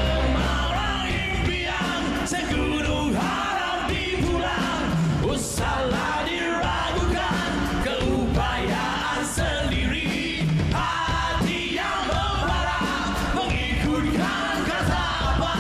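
Live rock band playing, with a singer's voice over the band.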